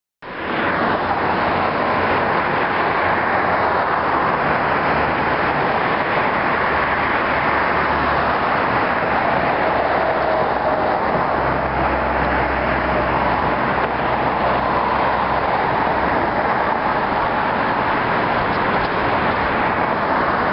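Steady outdoor noise picked up by the camera microphone, an even loud hiss and rumble with no speech.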